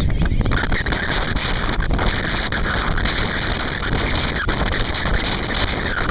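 Boat under way on open water, with a steady rush and rumble and wind buffeting the microphone.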